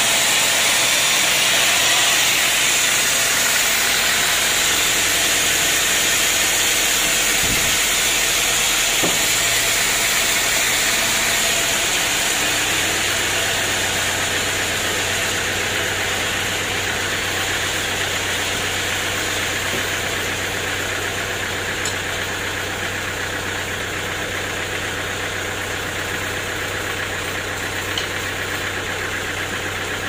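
Band sawmill running steadily, its blade sawing through a log. About twelve seconds in a steady low hum sets in and the overall sound eases slightly.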